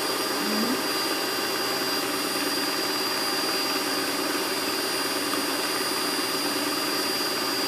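Electric cake mixer's motor running steadily, beating cake batter, a constant whir with a thin high whine.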